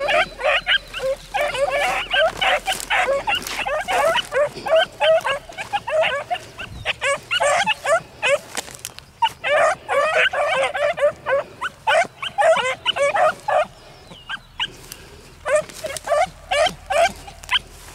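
Pack of young hound puppies, about five and a half months old, baying and yelping in an overlapping chorus as they run a rabbit. The calls thin out about fourteen seconds in, then pick up again briefly near the end.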